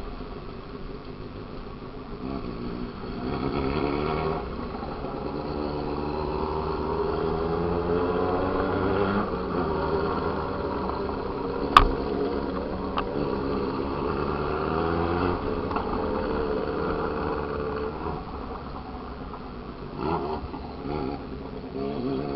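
Motorcycle engine running under way, its pitch rising and falling several times as the bike accelerates and eases off, over a steady rush of road and wind noise. A single sharp click comes a little before the middle.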